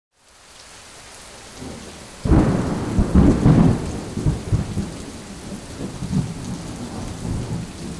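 Thunderstorm sound effect: steady rain fading in, then a sudden loud thunderclap about two seconds in that rumbles for a couple of seconds and dies away under the rain.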